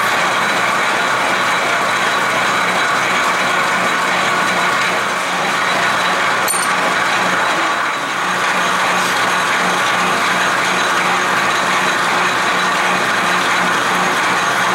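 Metal lathe running steadily, its gear train making a constant mechanical clatter over a low hum, as a cutoff tool turns a shoulder on a brass bar.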